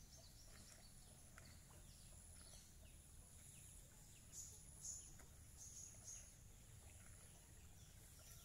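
Near silence: faint outdoor ambience with a thin, high insect drone that comes and goes and a few brief, high bird chirps, the clearest about halfway through.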